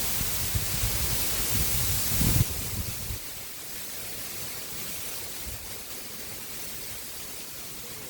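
Strong wind gusting over the microphone, a loud hiss with low buffeting rumble, for the first two to three seconds. It drops off suddenly to a steadier, quieter rushing noise of wind and river water.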